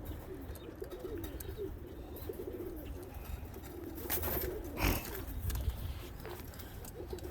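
Pigeons cooing, a continuous low warbling, with a couple of sharp knocks about four to five seconds in.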